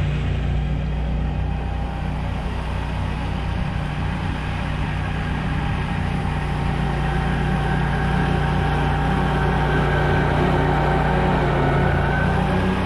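Pickup truck engine idling steadily with a low hum. A faint higher whine joins in about halfway through.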